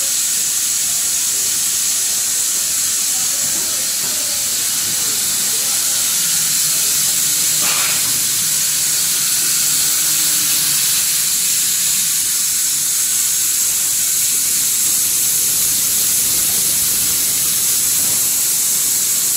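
Four-head extrusion blow molding machine running, with a steady, even hiss.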